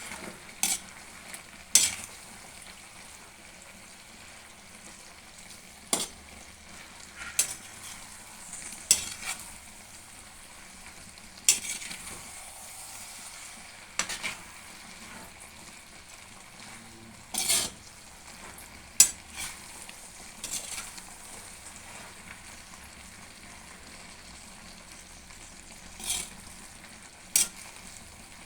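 Potato and aubergine curry with wadi sizzling steadily in a pan. A spatula scrapes and clinks against the pan every second or few as the curry is stirred.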